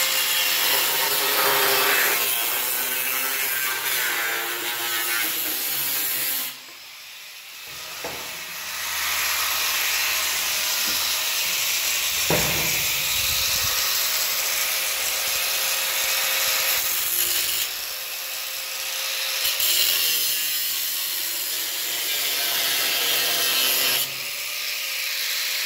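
A 4.5-inch angle grinder with a cut-off disc cutting through the steel frame of a pickup truck door, in several long runs with a brief quieter break about seven seconds in.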